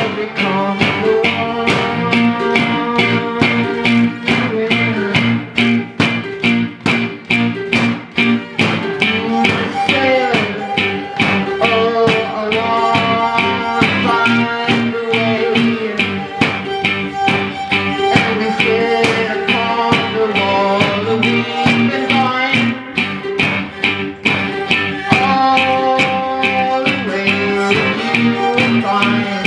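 Instrumental passage from a small acoustic group: a guitar strummed in a steady rhythm, with cello and violin playing held, bowed lines over it.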